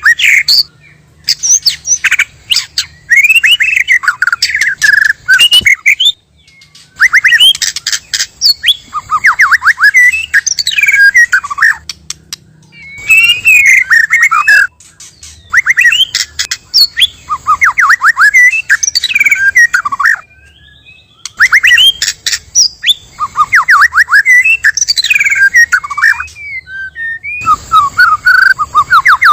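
White-rumped shama (murai batu) singing: bursts of fast, varied whistled phrases with sliding notes and sharp clicks, broken by short pauses of about a second.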